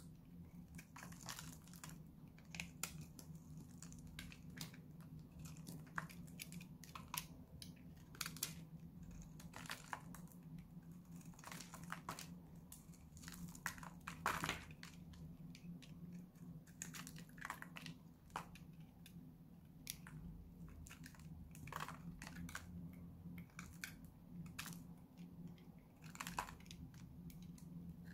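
Small metal blade cutting and scraping a dry bar of Lux soap: irregular crisp crunches and clicks as flakes break off the hard, dried soap. A steady low hum runs underneath.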